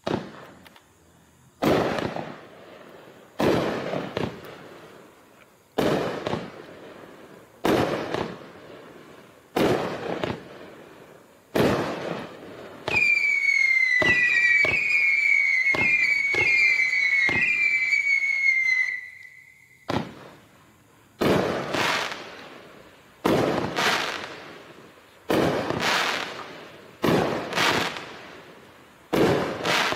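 Wildcat Holler multi-shot fireworks cake firing a shot about every two seconds, each sharp report followed by a fading tail. About a third of the way in, a run of whistling shots gives a high continuous whistle with repeated short falling glides that lasts about six seconds and stops abruptly before the single shots resume.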